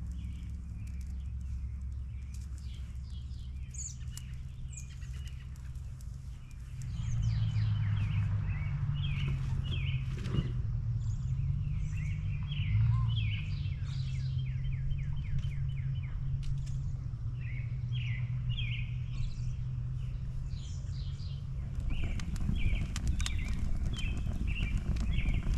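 Many small birds chirping and calling in short repeated notes, over a steady low hum that grows louder about seven seconds in and eases back near the end.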